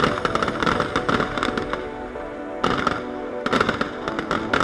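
Fireworks display: clusters of rapid bangs and crackling bursts over steady music.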